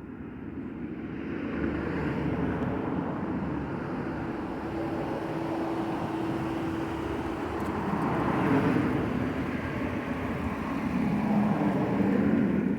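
Motor vehicle engine noise, a steady low hum that swells and eases over several seconds.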